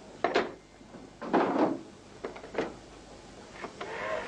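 Desk telephone handset being hung up on its cradle, followed by several more knocks and clatters as the phone is handled.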